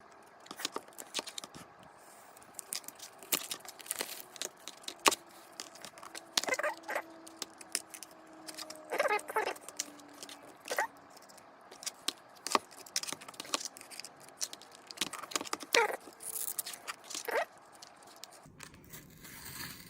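A knife cutting open a sealed product box. Irregular scrapes, clicks and short tearing strokes as the blade drags through the seal and the packaging is pried apart.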